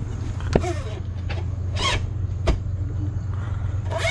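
Engine oil dipstick clicking and scraping in its metal tube as it is drawn out and pushed back in, with one sharp knock about two and a half seconds in, under a steady low hum.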